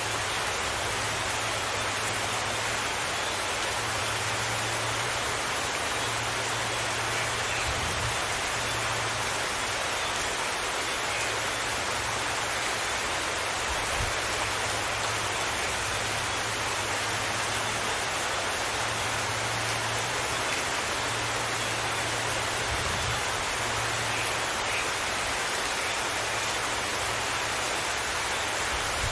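Steady rain falling, an even, unbroken hiss of drops.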